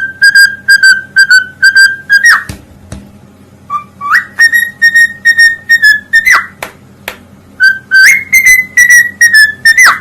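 Parrot whistling: three phrases of a high note pulsed rapidly, each ending in a sharp downward swoop. The second and third phrases start with an upward glide.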